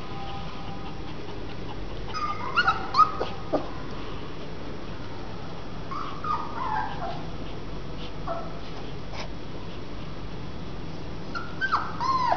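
Rough collie puppies about a month old giving short, high-pitched whimpering cries that often fall in pitch, in clusters about two seconds in, around six seconds, and again near the end.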